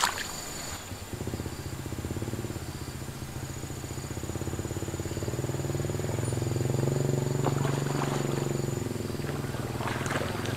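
A motor engine running steadily, getting louder over several seconds and then easing off. Near the end a hooked fish splashes faintly at the water's surface.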